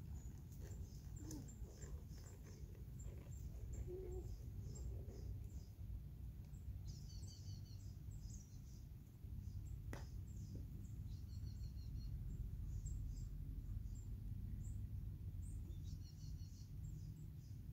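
Songbirds chirping on and off, with short high calls and a few quick repeated phrases, over a steady low rumble.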